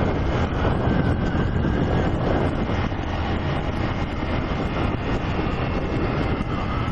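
Honda CG 125 Fan's single-cylinder four-stroke engine running at a steady pace while the motorcycle is ridden, its note holding even throughout.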